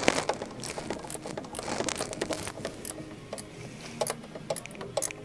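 Ratcheting gear wrench clicking in short runs as it turns a triple-square bit to back out the banjo bolt on the high-pressure fuel pump of a VW 2.0 FSI engine. The clicks come more evenly near the end.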